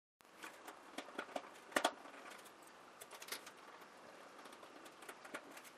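Hands handling a foam model airplane and its small parts: irregular light clicks and taps, with a quick clatter of knocks about two seconds in.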